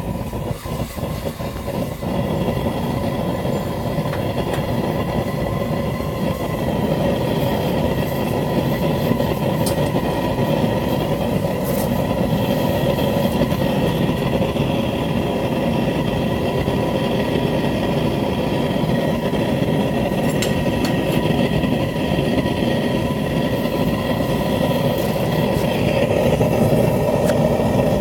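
Homemade propane forge burner running steadily: a continuous rushing flame noise with a few faint steady tones over it, growing slightly louder near the end.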